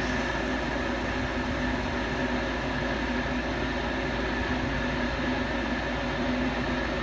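Rheem 90% gas furnace's draft inducer motor running steadily on a call for heat: an even whir with a steady low tone and a steady high tone.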